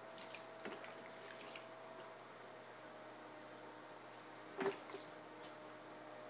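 Wet clay-throwing sounds on an electric pottery wheel: small drips and splashes from wet hands and a sponge, a cluster of them in the first second and a half and a louder wet splash a little before five seconds. Under them is the faint steady hum of the wheel running.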